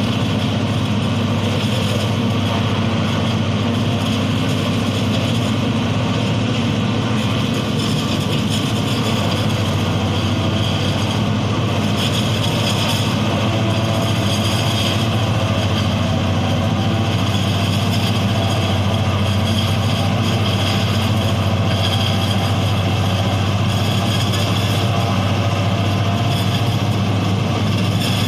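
Self-propelled forage harvester running steadily while it cuts and chops tall green grass. The sound is a deep, even engine hum with a hiss-like rush above it from the cutting and blowing.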